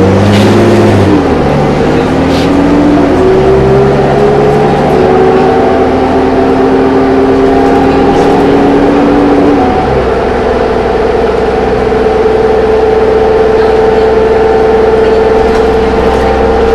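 2005 New Flyer D40LF city bus heard from inside the cabin, its Cummins ISL straight-six diesel pulling the bus along. In the first few seconds the engine's pitch climbs and drops back in steps, then climbs slowly, and from about ten seconds in it holds a steady drone.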